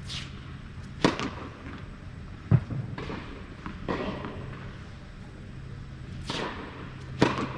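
Tennis serves on an indoor court: a sharp racket-on-ball strike about a second in and another near the end, with lighter ball bounces between them. Each hit rings briefly in the large hall over a steady low hum.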